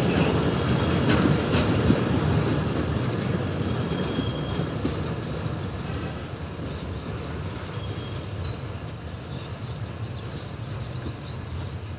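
Freight train wagons rolling past on the rails, a low rumble and wheel clatter that fades steadily as the last wagons and the brake van move away.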